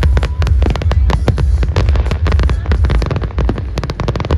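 Fireworks going off in a rapid barrage of bangs and crackles, many a second, over a heavy low rumble.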